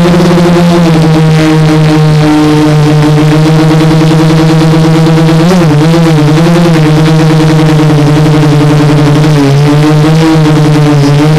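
Quadcopter's electric motors and propellers droning loudly and steadily, close to the onboard camera's microphone. The pitch wavers briefly about halfway through and again near the end.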